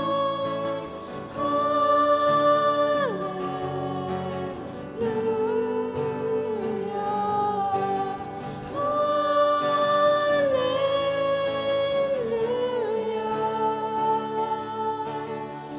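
A Lao Christian worship song: singing in long held notes that glide from one to the next over instrumental accompaniment, on a repeated 'Hallelujah' refrain.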